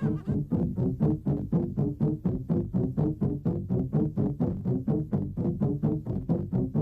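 Fast electronic background music: a synthesizer playing a quick, even run of short repeated notes, about four or five a second.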